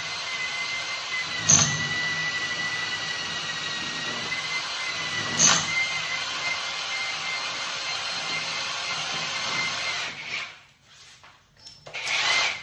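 Power drill running steadily with a high motor whine, boring the hole for an air-conditioner installation, with a couple of sharp knocks along the way. The motor stops about ten seconds in, and a short burst of noise follows near the end.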